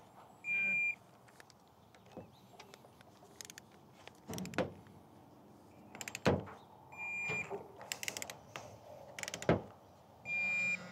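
Digital torque wrench beeping three times as it reaches its 9 ft-lb set torque on the pump manifold bolts, each beep short and steady. Between the beeps come sharp clicks and knocks of the wrench's ratchet head being moved to the next bolt.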